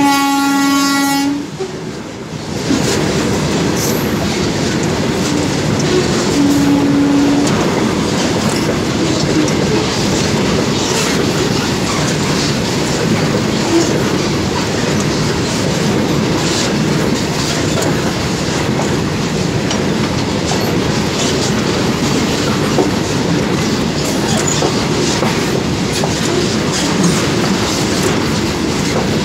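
A long goods train of covered box wagons rolling past at close range: a steady loud rumble with wheels clattering over the rail joints. A train horn sounds at the start and cuts off about a second in.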